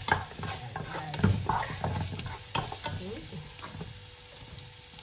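Minced garlic sizzling in hot oil in a nonstick pot while a wooden spoon stirs it, scraping and tapping against the pot's bottom; the taps thin out after about three seconds.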